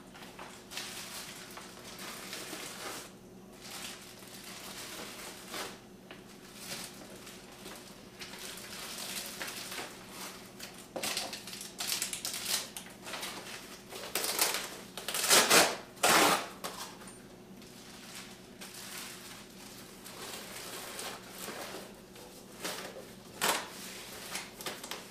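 Kitchen handling sounds as a packed lunch is made: small clicks and clinks of utensils and dishes and the crinkle of wrappers and an insulated lunch bag, with a few louder rustles a little over halfway through, over a faint steady hum.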